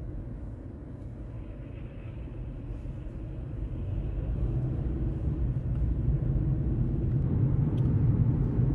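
Car driving, heard from inside the cabin: a steady low engine and road rumble that grows louder through the second half.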